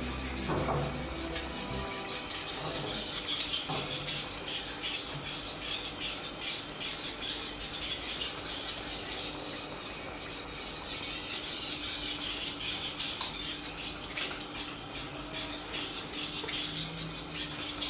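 Steel kitchen knife blade being stroked repeatedly along a wet Naniwa Chosera 1000-grit water stone: a continuous wet scraping hiss, stroke after stroke. The fine stone gives a fairly smooth sound.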